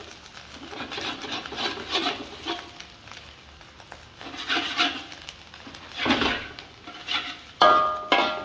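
Spatula scraping and turning pieces of fried egg in a wok, in uneven strokes. Near the end comes a louder knock with a brief ring.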